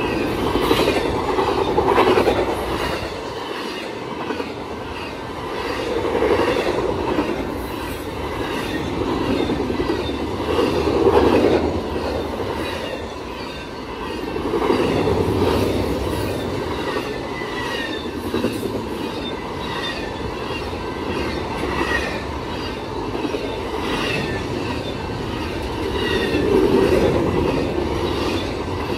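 Double-stack intermodal freight train passing at close range, its steel wheels rumbling and clattering over the rails. The noise swells and eases every four to five seconds as each well car goes by.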